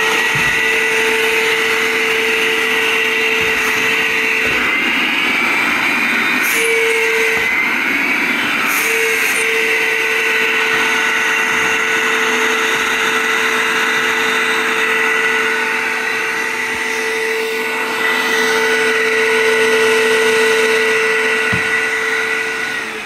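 Greenlee 690 vacuum/blower fishing system's motor running at full speed, working: a loud, steady whine over a rush of air. It winds down at the very end as it is switched off.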